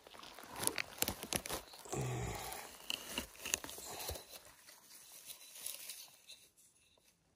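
Dry forest litter and twigs crackling, snapping and rustling as they are trodden on and pushed aside, fading out over the last couple of seconds.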